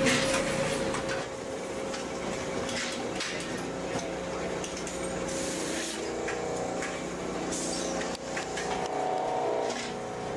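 Trimming press in a metal-stamping shop running with a steady hum while a brass Bronze Star blank is trimmed in the die, with a few sharp clicks and short hisses; a second, higher machine drone joins about six seconds in.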